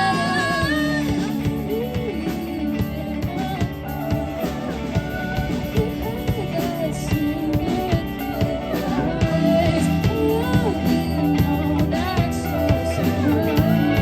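A rock band playing a song: a singer over guitar and a drum kit.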